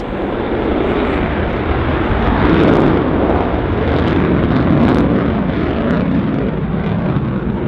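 Lockheed Martin F-35A's Pratt & Whitney F135 afterburning turbofan in afterburner, a loud, steady rushing roar with a few sharp crackles as the jet climbs away. It swells about a second in and holds.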